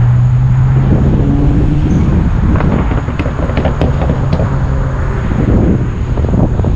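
Low hum of a passing road vehicle, fading away over the first two seconds, with wind buffeting the microphone throughout. A few faint clicks in the middle.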